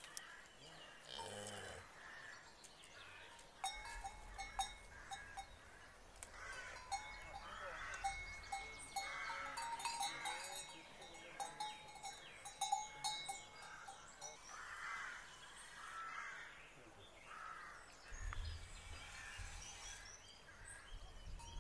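Cattle and calves in a farmyard pen, with a metallic bell-like ringing through the middle and scattered animal calls and short chirps.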